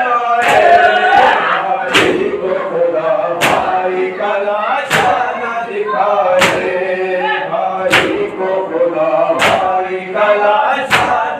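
A congregation of men chanting a nauha lament in unison while beating their chests in matam, the slaps landing together about every one and a half seconds.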